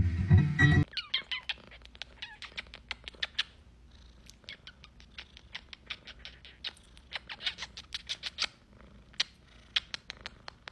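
Acoustic guitar strings twanging loudly as a cat bites at them, cut off about a second in. Then a cat purring softly, with a run of quick, light kissing smacks over it.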